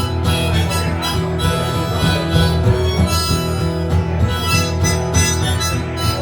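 Instrumental break in an old-time country song: harmonica playing the melody over a steady guitar rhythm.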